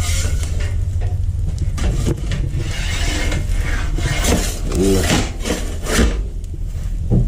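Several rasping scraping strokes over a steady low rumble, the strokes strongest from about two to six seconds in.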